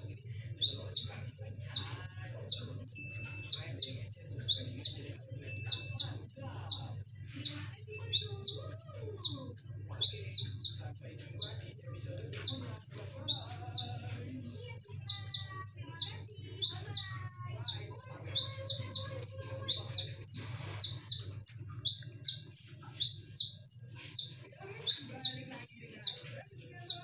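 Kolibri ninja sunbird singing without let-up: a fast series of sharp, high, paired chirps, with a short lull about halfway, over a steady low hum.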